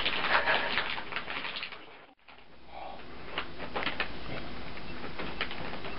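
Gift wrapping paper crinkling and crackling as it is handled and folded and a cat steps onto it. The sound dips almost to silence about two seconds in, then the crackling picks up again.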